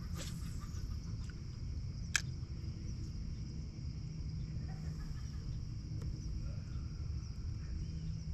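Outdoor ambience on open water: a steady low rumble under a faint steady high hum, with occasional faint short calls and one sharp click about two seconds in.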